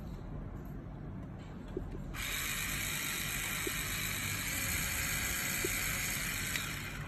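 Kemei 3-in-1 epilator with its callus-remover roller head fitted, switched on: its small motor and spinning roller run with a steady high buzz from about two seconds in, stopping just before the end.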